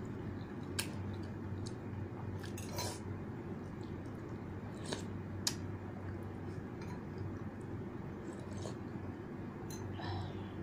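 A metal spoon and fork clinking and scraping against a bowl while eating noodles, with several short, sharp clinks scattered through, over a steady low hum.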